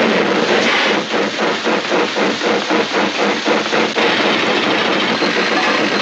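Steam-locomotive sound effect made for an early Disney cartoon: a loud, rhythmic hissing chuff at about four beats a second that turns into a steadier hiss near the end.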